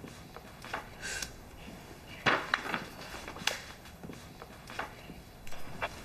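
Quiet room tone with a handful of soft, scattered clicks and knocks, small handling noises at a table.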